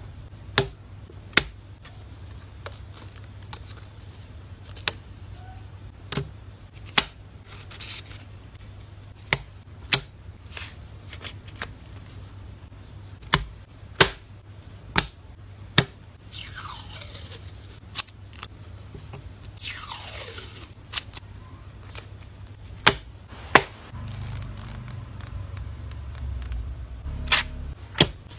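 Photocard packing sounds: light taps and clicks of cards and plastic sleeves being handled, with two longer scraping swishes about halfway through.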